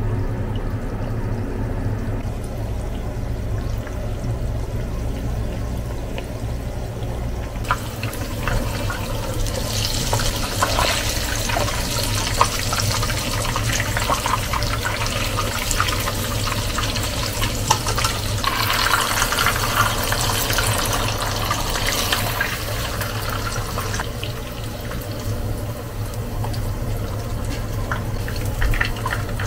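Water running from a tap, starting about eight seconds in, with small clinks over it and a steady low hum underneath.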